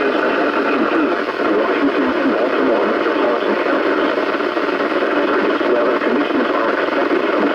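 Weather radio receiver putting out loud, steady static from a noisy, weak NOAA Weather Radio signal.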